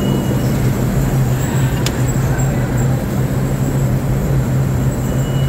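Steady low hum of vehicle noise, with a faint high whine near the start and end and a single sharp click about two seconds in.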